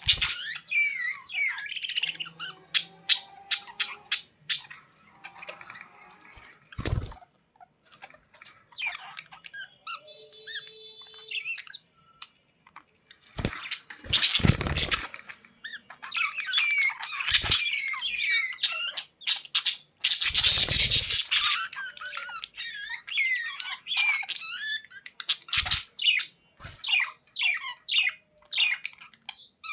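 Budgerigars chattering and squawking in quick, warbling chirps, with a few louder noisy bursts about halfway through and again around two-thirds of the way in.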